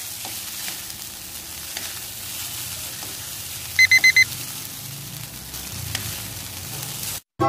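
Egg noodles sizzling in a wok as they are tossed and stirred with wooden chopsticks to coat them evenly with sauce. About four seconds in come four quick electronic beeps, an added subscribe-button sound effect, and the sound cuts off suddenly just before the end.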